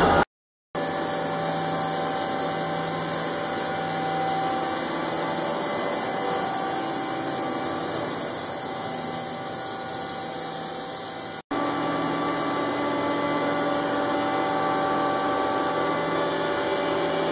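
Hardinge Cobra 42 CNC lathe running under power: a steady machine hum with several steady tones over an even hiss. A short silent gap falls just after the start and a split-second dropout about two-thirds of the way through.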